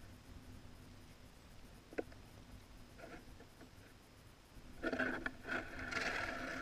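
Skis scraping and crunching over crusty snow as the kiter gets up and pulls away, starting about five seconds in and becoming the loudest sound. Before that, only a faint low rumble and a single click about two seconds in.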